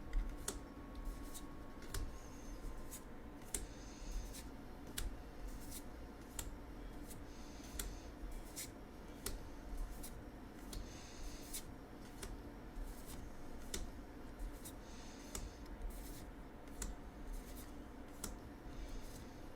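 Magic: The Gathering trading cards being flipped through by hand: irregular light clicks and snaps as cards are moved and set down, with a few brief swishes of card sliding over card.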